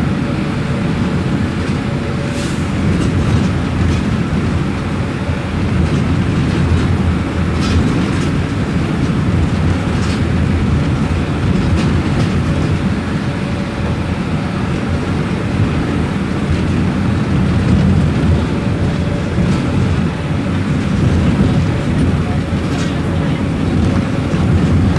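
Mercedes-Benz OF-1721 bus's front-mounted Euro V diesel engine running with a steady low rumble, with a few brief rattles and clicks over it.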